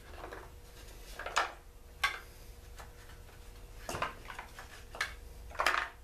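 Clicks and knocks of plastic and metal parts of a Mantis tiller's small two-stroke engine being handled and set down on a workbench during teardown, a handful of separate knocks with the loudest near the start and near the end. A faint steady hum runs underneath.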